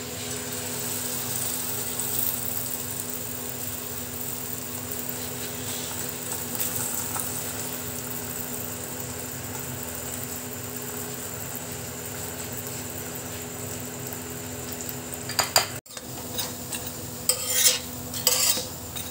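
Keema-stuffed paratha frying in ghee on a large tawa, with a steady sizzle. Near the end, a utensil scrapes and clatters repeatedly against the tawa.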